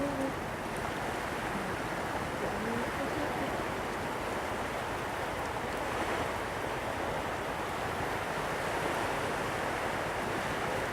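Steady wash of sea surf on the beach, mixed with wind buffeting the microphone.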